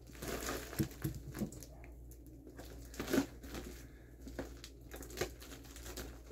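Plastic mailing package crinkling and rustling as it is handled and opened by hand: irregular rustles with a few sharper crackles.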